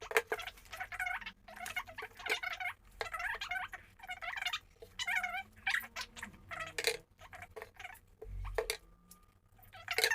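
High-pitched squeaky voice in a run of short wavering bursts without clear words, with a soft low thump near the end.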